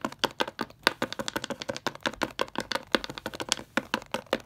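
A plastic Littlest Pet Shop figurine tapped repeatedly on a tabletop as it is hopped along to make it walk, giving a quick run of small clicks, several a second.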